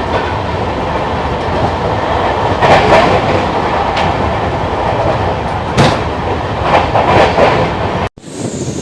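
Express train running at speed, wheels clattering along the rails with a few sharper clacks over rail joints. The sound cuts off abruptly near the end, and a quieter, steadier sound follows.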